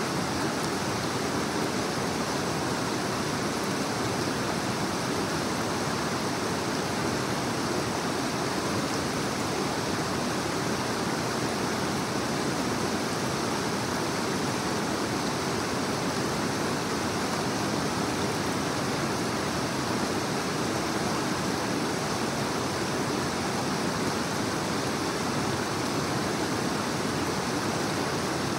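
A creek running fast over rocks and small rapids: a steady, unbroken rush of water.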